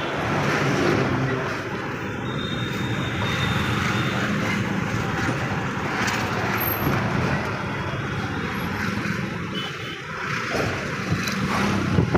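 A motor running steadily with a low hum, amid continuous outdoor noise.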